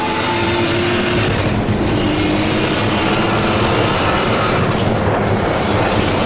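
Car engine running hard at speed, with dense wind and road noise and a faint engine note rising slightly near the start.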